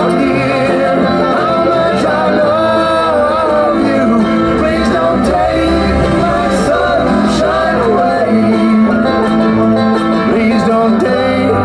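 Background music in a country style, with plucked strings and a melody line running throughout at a steady level.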